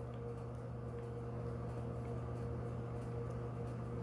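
Steady low electrical hum with a faint hiss: room tone at the soldering bench, no distinct event.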